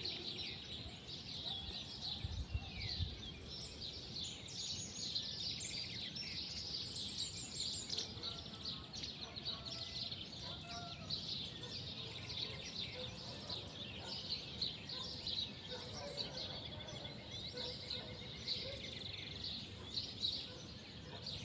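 Many small birds chirping and twittering together in a continuous, busy outdoor chorus. There is a brief low thud about two and a half seconds in.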